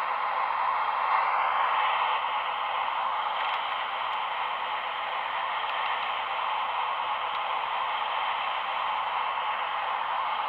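Radio-controlled model machinery running: a steady whirring hiss, with a brief shift in pitch about a second in.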